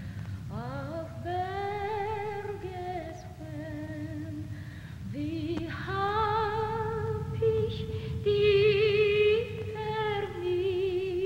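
Film score with a female voice singing slow, long-held notes with vibrato, sliding up into each phrase, over a low steady rumble. The voice is loudest a little past the middle.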